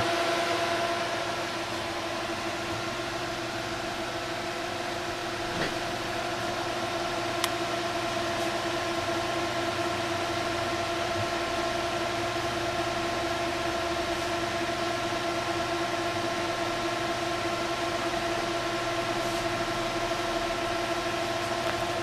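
Four Delta AFB1212SH 120 mm fans running at full speed (up to 3400 rpm) through a radiator: a steady rush of air with several steady humming tones from the blades. One faint click about seven seconds in.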